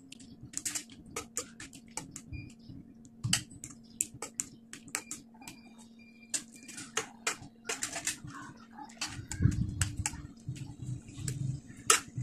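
Metal spoon clinking and scraping against a stainless-steel pan in quick, irregular clicks as the cooking liquid is scooped off boiled minced pork.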